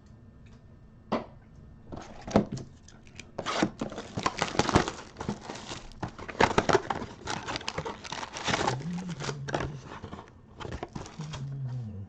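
Foil trading-card pack being torn open and crinkled. After a few light clicks, a dense run of crackling and tearing starts about two seconds in and goes on through the rest.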